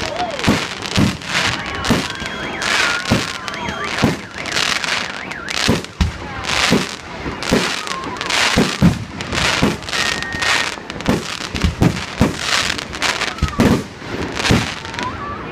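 Fireworks salute bursting overhead: a rapid, irregular run of loud bangs close together over continuous crackling.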